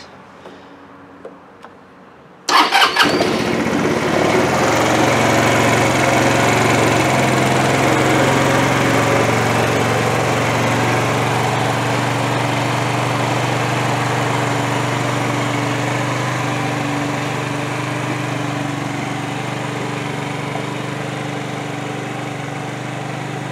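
A 2013 Genuine Buddy 125 scooter's 125cc four-stroke single-cylinder engine, on its stock exhaust, is cold-started about two and a half seconds in. It catches at once and settles into a steady idle, growing a little fainter toward the end.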